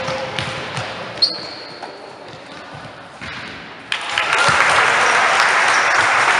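Basketball game in a hall: a basketball bouncing on the court floor and a single high sneaker squeak about a second in. Just before four seconds a sharp knock comes, then a sudden loud burst of shouting and cheering from players and onlookers that carries on.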